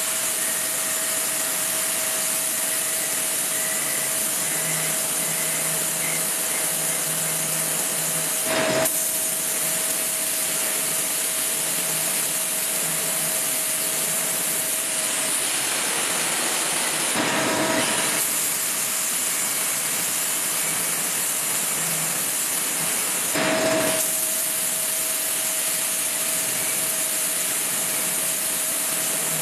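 Lathe turning stainless steel with a carbide cutting tool: a steady cutting hiss with a constant whine, swelling briefly three times.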